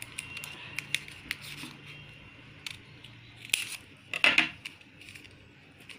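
Scissors snipping through folded paper in a series of short, sharp cuts, with a louder burst of handling noise about four seconds in.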